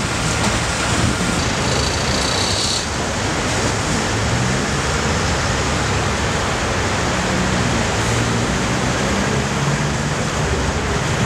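Steady street noise of traffic and a running diesel engine, with a brief high tone about one and a half seconds in.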